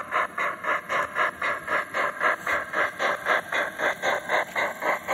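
Steam locomotive exhaust chuffs from the sound of a model BR 50 steam locomotive, a steady even beat of about four chuffs a second, with a faint steady whine underneath.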